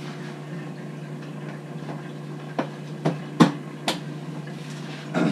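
Several sharp knocks and clicks of a Honda Grom motorcycle seat being pressed down and worked onto its mounts, the loudest about three and a half seconds in, over a steady low hum.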